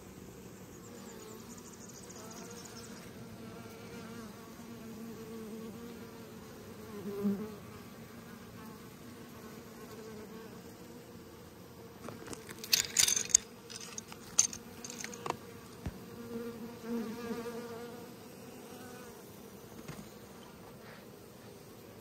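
Honeybees buzzing around the hive: a low, wavering hum of bees in flight, with one bee passing close and loud about a third of the way in. A cluster of sharp clicks and crackles comes a little past the middle and is the loudest sound.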